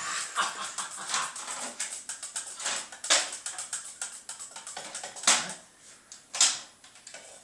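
Workmate folding workbench being unfolded and set up: its metal frame and legs rattle and click, with three loud knocks about three, five and six seconds in.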